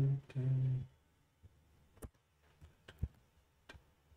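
A brief bit of voice at the start, then single computer keyboard keystrokes clicking sparsely, about one a second.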